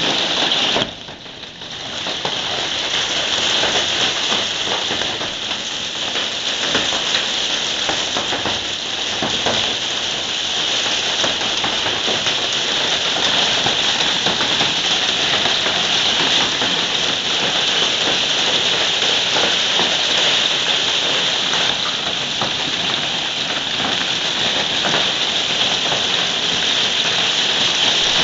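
Hailstorm: hail and heavy rain pelting down on surfaces, a dense, steady hiss of countless small impacts, with a brief dip in level about a second in.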